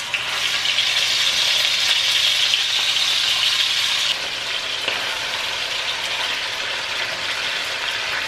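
Raw chicken drumsticks sizzling in hot oil as they are laid into the pan to shallow fry, a steady crackling hiss that steps down a little about four seconds in.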